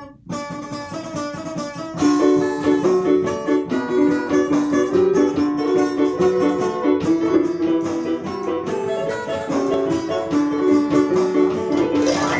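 Small band playing a tune together on electronic keyboards, acoustic guitar and trombone. The music gets louder and fuller about two seconds in.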